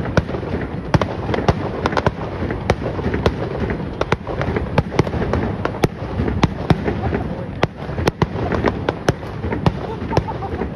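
Fireworks going off in a dense, continuous barrage: many sharp bangs and crackles at irregular intervals, several a second, over a constant rumble.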